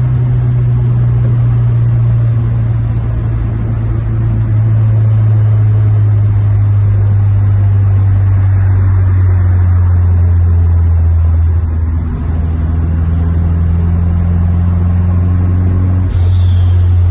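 Turbocharged Volkswagen Parati G3 1.6 four-cylinder engine droning steadily at cruising speed, heard from inside the cabin; its pitch eases slowly lower. Near the end there is a brief falling high whistle.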